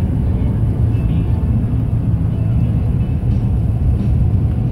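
Steady low rumble of road and engine noise inside a moving truck's cabin.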